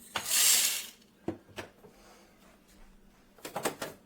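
A short, loud hiss lasting under a second, followed by a few sharp clicks and a quick cluster of knocks near the end.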